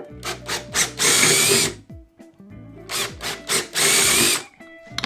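Handheld power drill with a twist bit boring through plywood. Twice it gives a few short trigger pulses and then a full-speed run of under a second.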